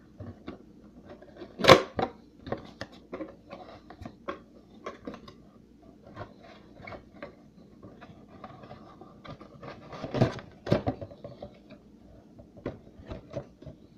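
Handling noise from a cardboard box being worked at: a run of irregular small clicks, scrapes and rustles, with a louder knock about two seconds in and a louder scuffle around ten seconds in.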